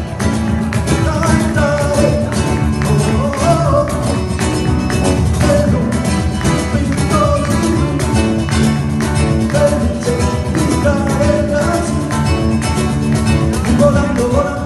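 Flamenco music with guitar and a dense, driving rhythm of percussive strikes under a gliding melody.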